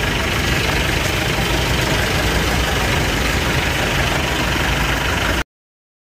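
Truck engines idling in a queue of stationary pickups and light goods trucks: a steady low rumble with a hiss over it. The sound cuts off abruptly about five seconds in.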